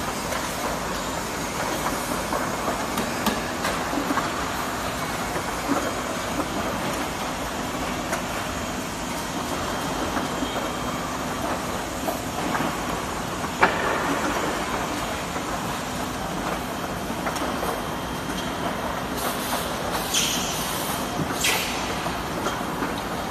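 Automatic soldering robot and factory machinery running steadily: a constant mechanical hum with scattered light clicks, one sharp click about halfway through, and a few short hisses near the end.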